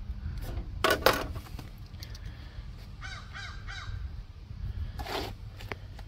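A crow cawing, about four quick calls in a row around the middle, over a steady low rumble. A sharp knock about a second in is the loudest sound, with another short noisy burst near the end.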